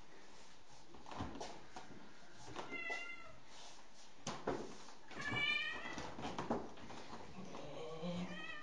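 A white cat meowing while being chased around a sofa in play: a short call about three seconds in, a longer, louder call with a falling pitch about halfway, and a lower call near the end. Thumps and scuffles of hands and paws on the sofa's fabric come between the calls.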